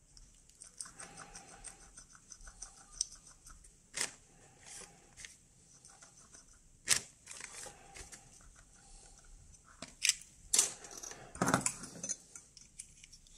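Geiger counter clicking in short runs of rapid ticks, with a faint short beep recurring every second or so. Several sharp knocks and rattles from handling the tube and its wires break in, the loudest near the middle and towards the end.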